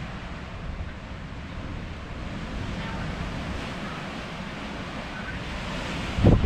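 Strong wind rushing and buffeting the microphone in a steady low rumble, with a louder buffet from a gust near the end.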